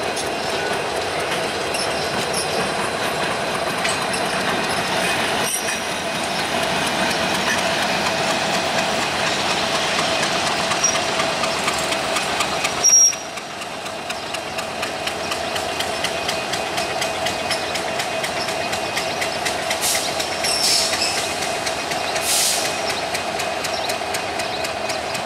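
A rake of empty passenger coaches rolling slowly along the track, wheels clicking over rail joints, with a diesel locomotive's engine running. A brief loud knock about halfway through.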